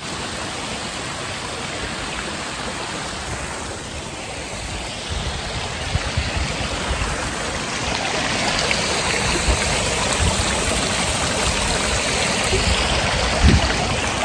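Wind rushing over a phone's microphone, a steady hiss with gusty low buffeting that grows a little louder over the stretch, with one heavier buffet near the end.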